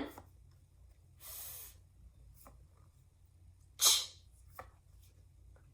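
A woman sounding the phonics sound "ch" as one short breathy hiss, about four seconds in. A softer half-second hiss comes about a second in, and a few faint clicks.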